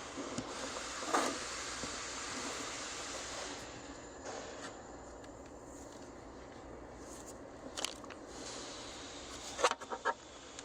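Sharp metal clicks and knocks from hand tools on the engine's belt tensioner, one about a second in and a quick cluster of three or four near the end, over a steady background hiss.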